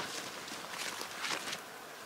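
Several short scuffing, rustling noises in the first second and a half, then a soft steady hiss.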